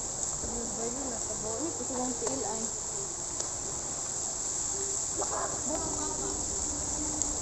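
Steady high-pitched chorus of insects chirring without a break, with faint distant voices under it.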